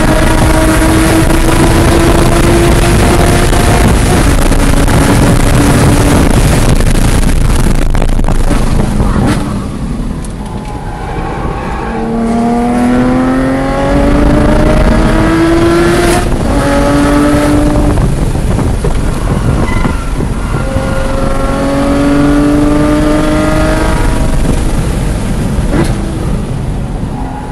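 Porsche Cayman GT4's flat-six, enlarged to 4.5 litres and running catless headers with an X-pipe, driven hard on track with loud wind and road noise at speed. It drops off under braking about ten seconds in, then climbs in pitch through quick upshifts, pulls up again from about twenty seconds, and falls away near the end.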